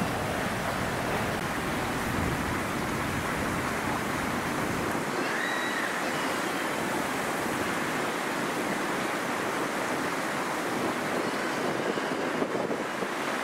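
Strong gusty wind rushing steadily, buffeting the microphone with a low rumble for the first five seconds or so, then lighter.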